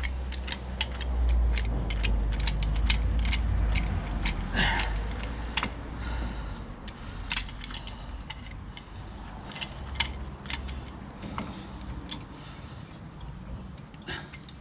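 Hand tools working on a car's front brake caliper: irregular sharp metal clicks and taps, with a low rumble through the first half, as the caliper is forced in to push the piston back and free the brake pads.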